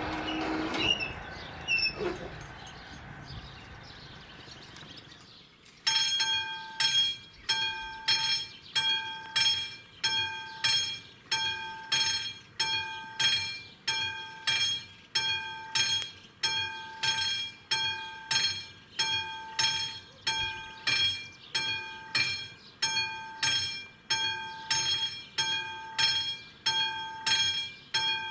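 The rumble of a just-passed train dies away over the first few seconds. Then, about six seconds in, the level crossing's classic electromechanical warning bell (AŽD 71) starts ringing, single clanging strikes a little more than one a second, as the warning restarts for the next train.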